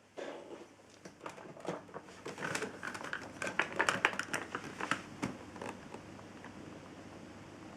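Handling noise: a quick, irregular run of clicks, rattles and rustles that thins out about five seconds in, leaving a faint steady background.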